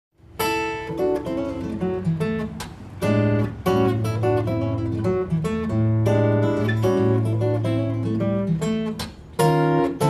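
Acoustic guitar music, strummed chords and picked notes over held bass notes, starting about half a second in.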